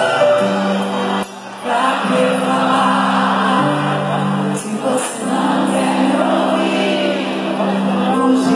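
Live concert music recorded from within the audience: held keyboard chords under a woman's singing, with many voices in the crowd singing along. The music dips briefly a little over a second in.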